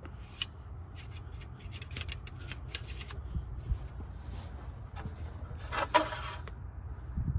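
Hand handling metal parts in an old, rusty engine bay: a run of small clicks and scrapes, with a louder rasping scrape about six seconds in.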